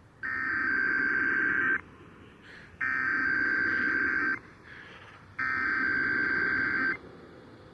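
Emergency Alert System SAME header for a Required Weekly Test: three identical bursts of buzzing digital data tones, each about a second and a half long, with a second's pause between them.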